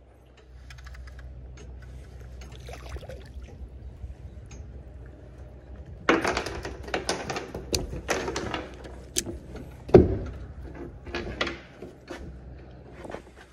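A baitcasting reel being wound in, with faint ticks over a steady low hum. About six seconds in, a rapid run of knocks, scrapes and rustles starts as a hooked yellow grouper is swung aboard and knocks against the boat's deck, with one loud thump about ten seconds in.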